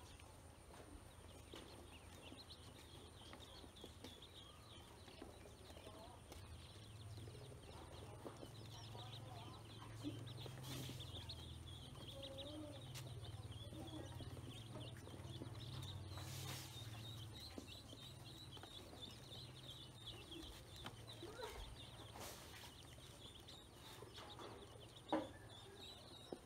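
A brood of domestic ducklings peeping faintly and continuously, many short high chirps overlapping, with a few sharp taps, the loudest near the end.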